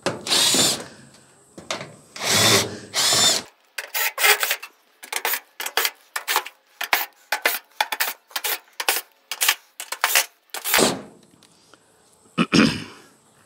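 Cordless impact driver with a hex bit undoing sheet-metal screws from a dryer's back panel, run in several short bursts. In the middle there is a long run of short sharp clicks, about four a second.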